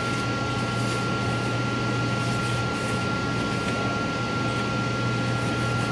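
Steady background hum and hiss with a constant high-pitched whine, unchanging throughout; no distinct handling sounds stand out.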